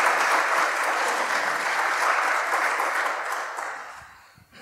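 Audience applauding, steady at first and then dying away near the end.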